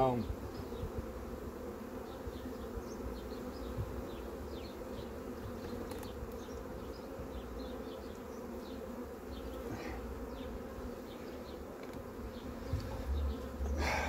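A swarm of honeybees buzzing with a steady, even hum.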